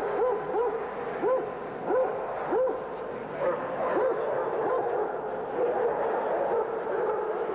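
A basset hound barking repeatedly, short rising-and-falling barks about every half second, loudest in the first three seconds and fainter after, over the chatter of a crowd.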